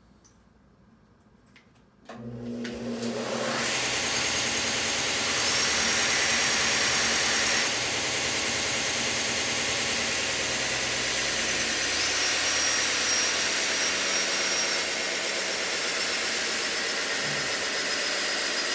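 Electric grinder sharpening a TIG welding tungsten: the motor switches on about two seconds in, spins up over a couple of seconds and then runs steadily and loudly.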